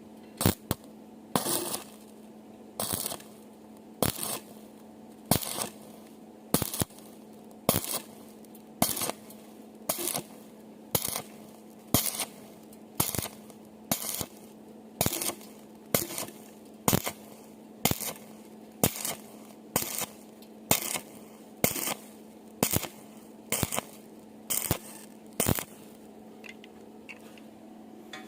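Stick (arc) welder striking and breaking the arc on thin angle iron in short bursts, about once a second: each burst is a brief crackle, laid down stitch by stitch so the thin metal doesn't burn through. A steady welder hum runs underneath, and the bursts stop near the end.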